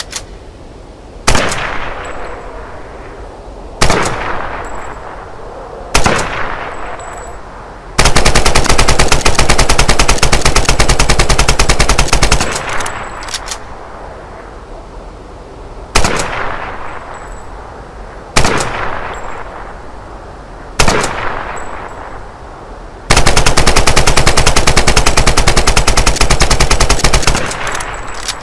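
AK-47 assault rifle (7.62×39 mm) firing: three single shots a couple of seconds apart, each trailing off in a long echo, then a full-automatic burst of about four seconds. The same pattern repeats: three more single shots, then a second long burst near the end.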